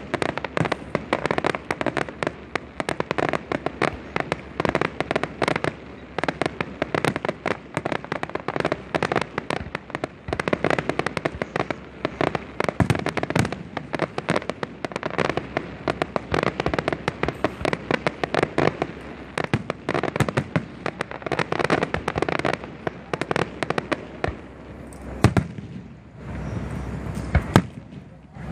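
Fireworks display: a rapid, dense barrage of bangs from bursting aerial shells. It thins out about 24 seconds in, leaving a few last loud bangs near the end.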